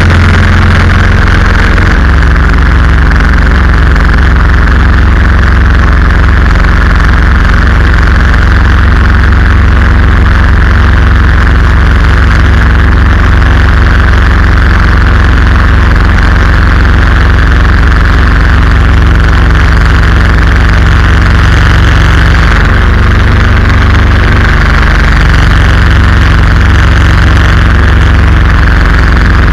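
Predator 212cc single-cylinder four-stroke engine running steadily, loud and close, driving the canoe's inboard propeller shaft under way, with a steady rushing noise over it. The engine note shifts slightly about three-quarters through.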